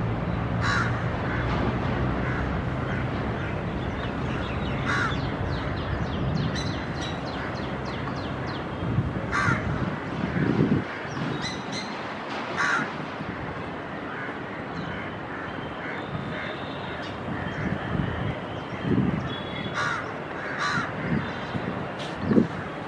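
Crows cawing every few seconds, with lighter chirps of smaller birds over a steady outdoor background hum.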